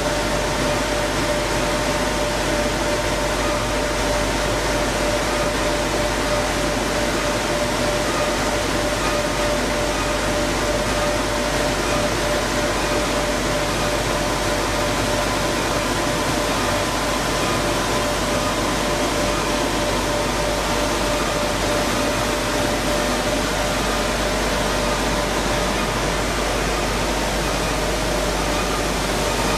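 Grain milling machinery running steadily: a dense, unbroken mechanical noise with a steady whine running through it.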